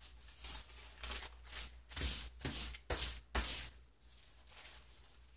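Sheets of thin deli paper wet with spray ink rustling as they are flipped and pressed onto newsprint to blot off the wet ink. A quick run of short rustles, loudest in the middle, dies away after about four seconds.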